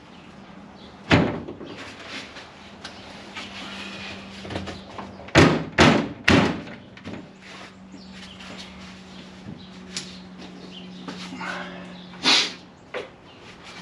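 Loose sheet-metal floor pan knocked and bumped as it is worked into place in the vehicle body: scattered knocks, with a quick run of three loud bangs about five to six and a half seconds in and another near the end, over a steady low hum.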